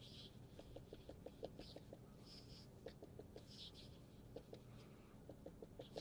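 Near silence, with faint, irregular small clicks and short soft rustles.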